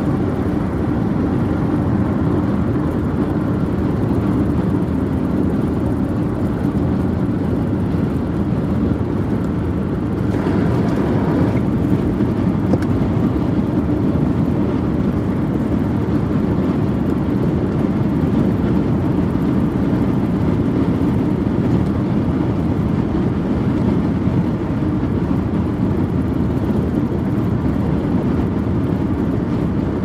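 Steady road and tyre noise heard inside a car cruising at freeway speed: an even low rumble, with a brief hissier stretch about ten seconds in.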